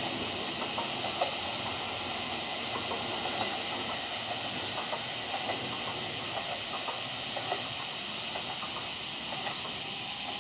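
Flower 2000 diesel railcar running away down the single track: a steady distant hiss and hum with scattered light clicks.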